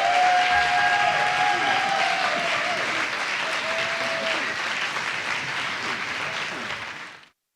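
Theatre audience applauding, with a few voices calling out over it in the first few seconds. The applause eases off slightly and then cuts off abruptly near the end.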